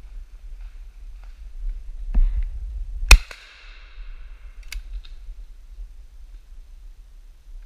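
A shotgun fired close by: one loud sharp shot with an echoing tail that fades over about a second. A low bump of movement comes just before it, and a fainter sharp crack follows about a second and a half later.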